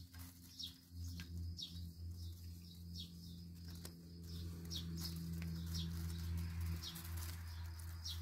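A small bird chirping over and over, in short falling chirps about once a second, over a steady low hum.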